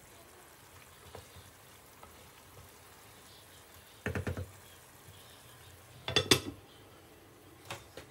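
Wooden spatula stirring thick curry in a nonstick pan, knocking against the pan about four seconds in, then a sharper, louder clatter of cookware around six seconds in and a single click near the end as the pan's glass lid is put on.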